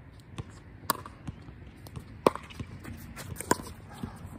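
Pickleball rally: paddles strike the hollow plastic ball with sharp pops, three loud hits roughly a second and a half apart. Lighter ticks and shoe steps on the hard court come between them.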